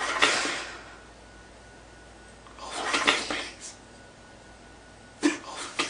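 A man crying: three bouts of ragged, breathy sobbing, at the start, around the middle and near the end, with quiet between.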